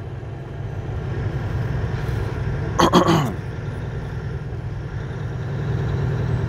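Semi truck's diesel engine and road noise heard from inside the cab while driving: a steady low rumble that grows a little louder toward the end, with a brief louder sound about three seconds in.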